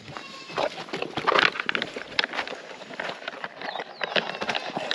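A dog eating wet, milky food from a plastic bowl: irregular quick chewing and smacking noises.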